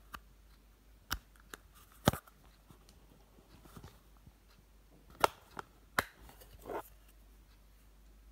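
Sharp plastic clicks and taps, about five in all, as a plastic makeup compact and clear plastic organiser boxes are handled, the compact's clear lid being flipped open; the loudest clicks come about two seconds and about five seconds in.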